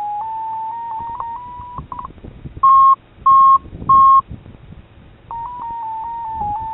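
FrSky telemetry variometer tone from the RC transmitter: a steady electronic tone whose pitch steps slowly upward as it tracks the glider's vertical speed, then stops about two seconds in. Three short, much louder and slightly higher beeps follow at even spacing. Near the end the vario tone returns, wavering at a slightly lower pitch.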